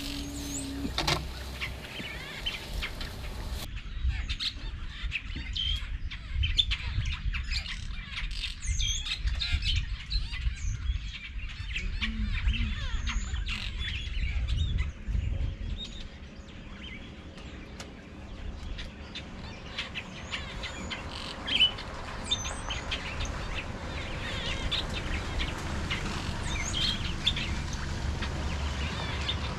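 Wild birds chirping and calling, many short high chirps and little rising-and-falling calls, over a low uneven rumble.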